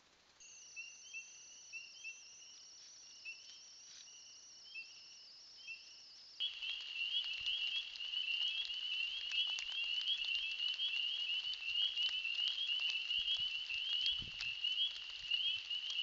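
A night chorus of frogs: many short, high peeping calls repeated over and over. The chorus turns suddenly louder and denser about six seconds in, with a few faint clicks among it.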